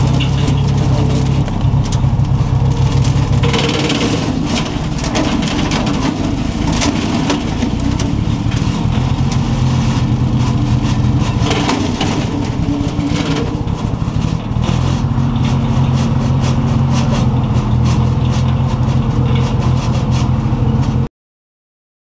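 Bobcat skid steer engine running under load while its front-mounted bush hog, driven by the skid steer's hydraulics, cuts through brush, with frequent cracks and snaps of stems and branches. The engine note shifts a few times, and the sound cuts off abruptly about a second before the end.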